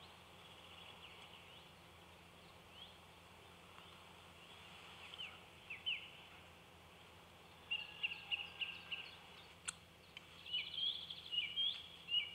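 Small birds calling: short chirps and quick sweeping notes, sparse at first and coming thick and fast in the last third, over a faint steady background hush. One sharp click about two-thirds of the way through.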